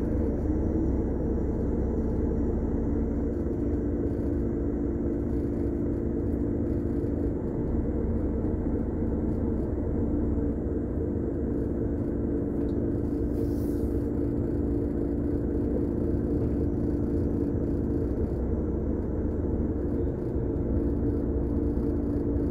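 Heavy truck's diesel engine running at low speed in slow traffic, heard inside the cab as a steady low drone and hum. A short hiss sounds about halfway through.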